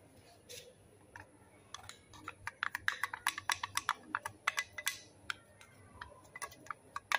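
Quick irregular clicks and taps of a spoon against a metal cat-food can as wet food is scooped out, starting about two seconds in.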